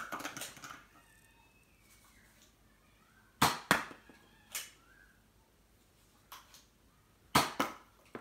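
Nerf foam-dart blaster being fired: two sharp cracks about a quarter second apart, heard twice, about three and a half and seven and a half seconds in, each followed by a fainter knock.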